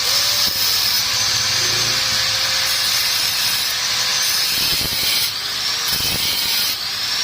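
Power tool running steadily with a high whine and hiss, its pitch bending briefly a few times, with a few dull knocks in the second half.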